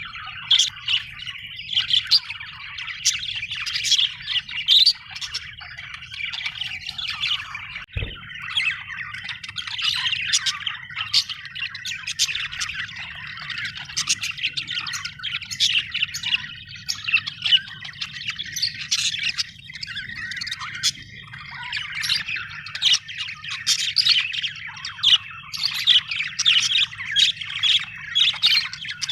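Budgerigars chattering, with dense, overlapping chirps and squawks throughout. A faint low hum runs underneath, and there is a brief thump about eight seconds in.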